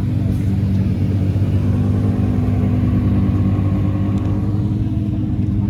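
A car engine running steadily at low revs, a loud low rumble as a car moves slowly close by.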